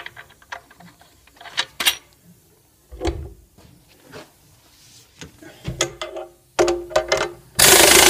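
Scattered metal clicks and clanks of lug nuts and a steel tractor wheel rim being handled during a wheel change, some knocks ringing briefly. Near the end an impact wrench starts up with a loud, steady rattling run.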